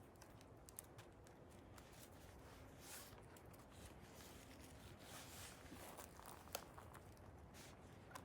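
Faint rustling and scattered small snaps as wild oyster mushrooms are pulled and torn from the wood and handled, close to the microphone.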